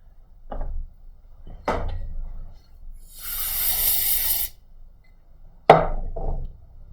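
Tools knocking against a repair bench three times, and about three seconds in a hiss lasting about a second and a half.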